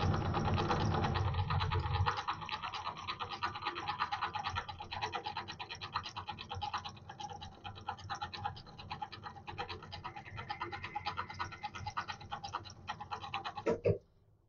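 Myford ML7 lathe running with a fast, dense clicking rattle while the tool chamfers the bore of a pulley in the chuck. The low rumble drops away about two seconds in, and the sound cuts off suddenly near the end, followed by a single click.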